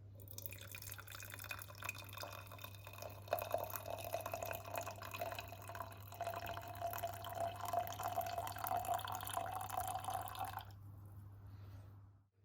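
A stream of liquid pouring into a cup or pot, splashing and trickling steadily for about ten seconds, then stopping sharply near the end.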